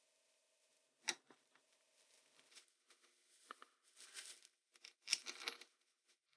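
Light clicks, scrapes and rustling as gloved hands fit the end cap onto a vintage animal clipper's motor housing and seat it over the capacitors. There is a sharp click about a second in and another a little past three seconds, then two short bursts of rustling and scraping near the end.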